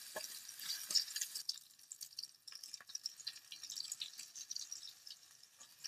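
Beaten egg and potato mixture frying in hot mustard oil in a kadai, sizzling with many small crackling pops. The sizzle is strongest in the first second and a half and then settles lower.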